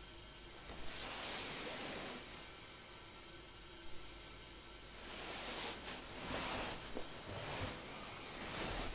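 Kimono and hakama cloth rustling twice, about a second in and again from about five to seven seconds, as the wearer rises from a bow and then leans forward to turn, over a steady faint hiss. A few soft low thuds come near the end.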